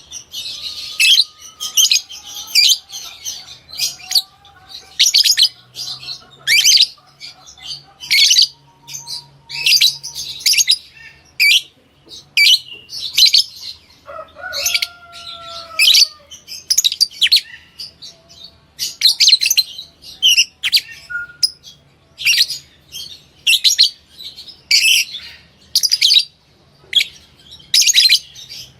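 African lovebirds chirping: short, sharp, high chirps repeated about once a second, sometimes in quick pairs.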